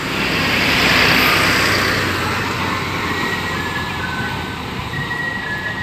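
A road vehicle passing close by: engine and tyre noise swell to a peak about a second in, then slowly fade into the steady hum of traffic.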